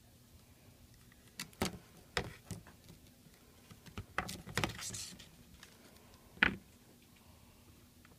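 Hands and small tools working double-sided tape onto an iPad 2's frame: scattered light clicks and taps, a short scratchy rustle just before five seconds in, and one sharper tap about six and a half seconds in.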